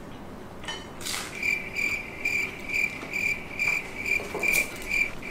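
Cricket chirping: a loud, even, pulsing chirp about two and a half times a second, starting about a second in after a short whoosh.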